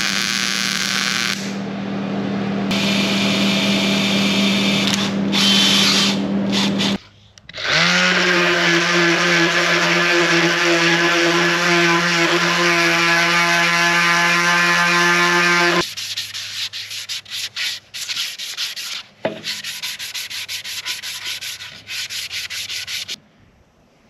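MIG welder arc in two runs over a steady hum. After a short break, a random orbital sander runs steadily on a wooden disk for about eight seconds. This is followed by irregular short rubbing strokes that stop shortly before the end.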